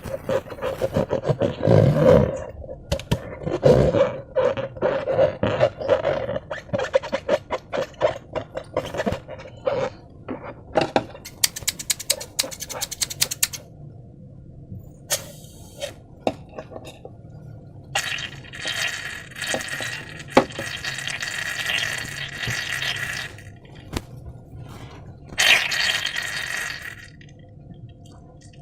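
Slime being squeezed and worked with a balloon, making wet crackling and popping for about the first ten seconds. A quick run of even clicks follows about halfway, then two longer hissing, rubbing stretches near the end.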